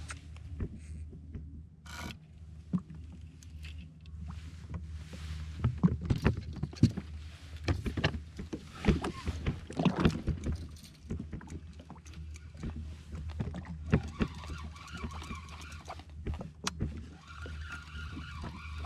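Jet ski engine idling with a steady low hum, with knocks and clicks of fishing rod and gear handling. In the last few seconds a higher whir comes in: a spinning reel being wound as the bent rod pulls against a hooked fish.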